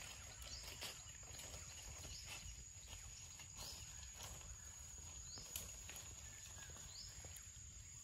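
Faint forest ambience: short rising chirps that repeat about every second and a half over a thin, steady high tone and a low rumble.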